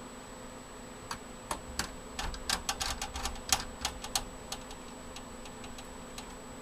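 Irregular small metallic clicks and taps from a screwdriver and screws fastening expansion-card brackets into a computer case, bunched between about one and four seconds in.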